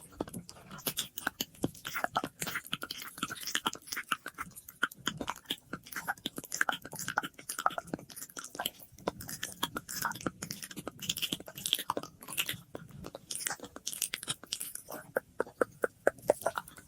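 Close-miked ASMR mouth sounds: a dense, rapid run of wet clicks and smacks of lips and tongue, with echo added to the audio.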